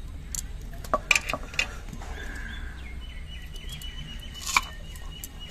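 Outdoor rural background with a few sharp clicks and taps in the first couple of seconds and once more later. From about three seconds in, a high, steady, pulsing chirp carries on for over two seconds.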